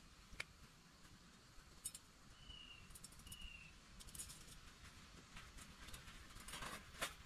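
Near silence with scattered faint clicks and taps, the loudest a cluster near the end. About two and a half seconds in, a bird gives two short, high whistled notes a little under a second apart.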